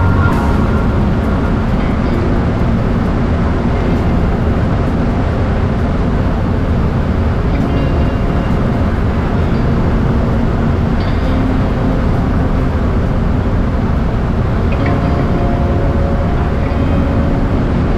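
Cessna 172 engine and propeller drone with rushing air, heard steadily from inside the cabin in cruise flight.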